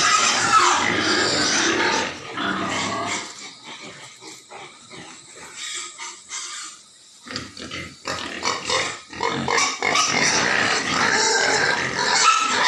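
Pigs in a pen vocalizing, loud in the first two seconds and again from about eight seconds on, with a quieter stretch in between.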